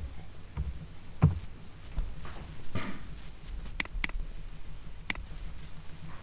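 Computer keyboard and mouse in use: a single key knock about a second in, then three short sharp mouse clicks in the second half, two close together and one a second later.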